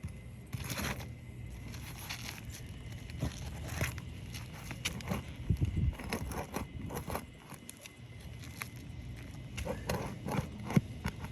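Asphalt roofing shingles being pried up and worked with a hand tool: irregular scraping, crackling and sharp clicks as shingles and old nails are worked loose.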